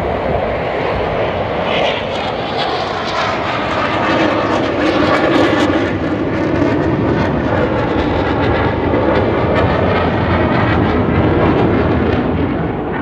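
Military jet flying past at an air show, a loud steady engine roar that swells through the middle and eases off near the end.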